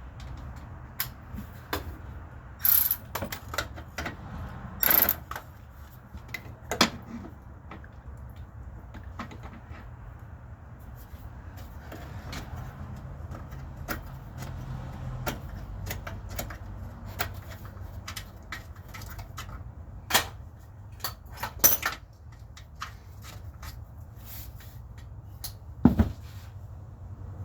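Irregular metallic clinks and knocks of tools and parts being handled during car repair work, a few of them sharper and louder, over a low steady hum.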